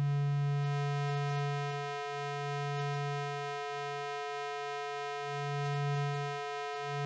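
Ring-modulated sine-wave tone from a Eurorack synthesizer, a Ward Oscillator sine run through the Schlappi Boundary's four-quadrant VCA. It is a steady low tone with many evenly spaced higher tones above it. The low tone swells and dips unevenly as the VCA's bias knob is turned to null out carrier or modulator bleed.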